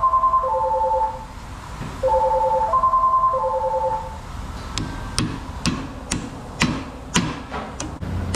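An electronic phone ringtone plays twice, a short melody of pulsing tones. From about halfway in come sharp metal taps, about two a second, as a new U-joint's bearing cap is tapped into the driveshaft yoke.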